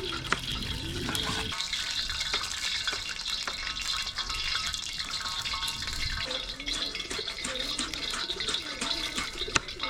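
Water splashing and trickling, with a few sharp clicks scattered through.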